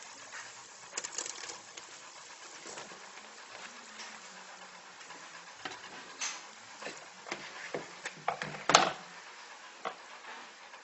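Handfuls of chanterelle mushrooms dropping from a cloth into a frying pan of buttery onions: scattered soft patters and knocks, the loudest about nine seconds in, over a faint steady hiss of the onions frying.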